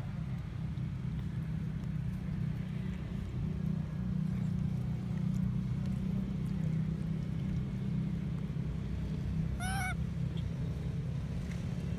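Steady low rumble throughout, with one short high-pitched squeal from a baby macaque near the end, wavering up and down for under half a second.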